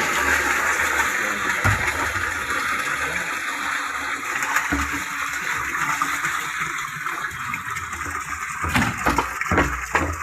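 A steady rush of running water, with a few dull thumps.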